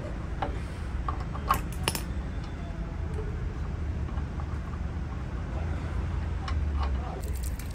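A few sharp metallic clicks and clinks as a hand tool is fitted to and turned on a radiator's valve, over a steady low rumble.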